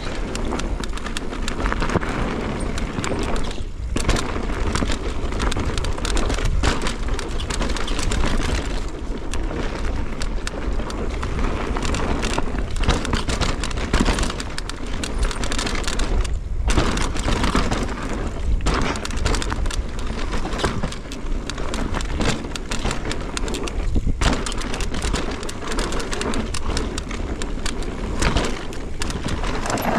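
Mountain bike descending a dirt forest trail at speed: the tyres rumble and crackle over the dirt and roots and the bike rattles, with wind noise on the camera's microphone and a few brief lulls.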